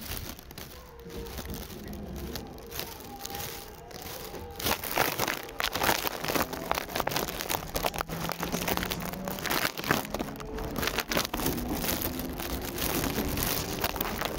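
Seibu 6000 series electric train's Hitachi GTO-VVVF inverter and traction motors whining in several faint tones that rise in pitch in the second half as the train gathers speed. Frequent rustling and crinkling clicks from the recording phone being handled sound over it throughout.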